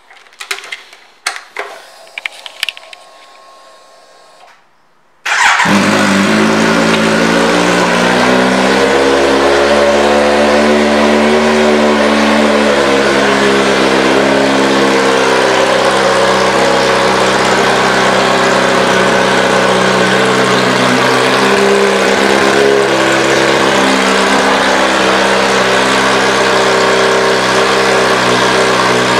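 A few clicks, then about five seconds in the 2018 Kawasaki Z900's inline-four engine, fitted with an aftermarket exhaust, starts and settles into a steady idle. Its idle rises a little and eases back a few seconds after starting.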